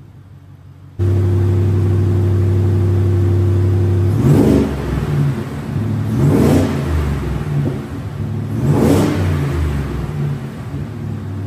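2023 Ford Raptor R's supercharged 5.2-litre V8, fitted with an S&B intake, idling with the hood open and revved three times, each rev rising and dropping back to idle. The steady idle cuts in abruptly about a second in.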